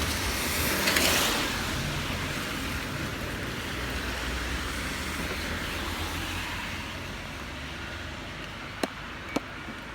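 Road traffic on a rain-wet street: a car's tyres hiss past about a second in, then the hiss fades. A couple of sharp clicks come near the end.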